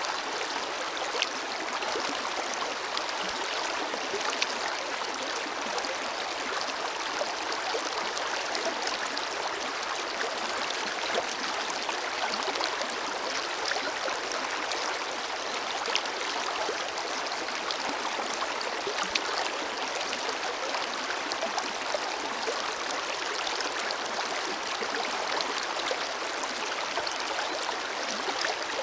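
Forest river flowing over stones: a steady rushing of water with small splashes and gurgles scattered through it.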